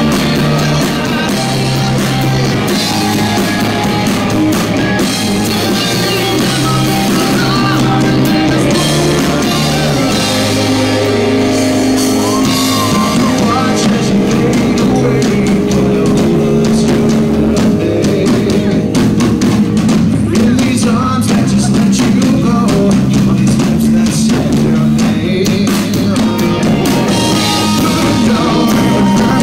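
Live rock band playing: a male lead vocal over electric guitar, bass and drum kit, loud and steady, as heard from within the audience.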